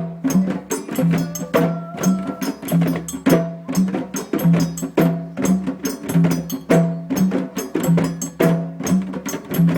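Djembe drumming: a fast, steady rhythm of sharp strikes over deeper, ringing low tones, the pattern repeating about every second and a half.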